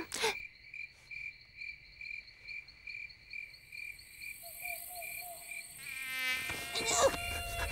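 Crickets chirping in a steady rhythm of about two to three high pulses a second, a night-time ambience. There is a single sharp click just after the start and a brief run of low notes a little after the middle, and music comes in near the end.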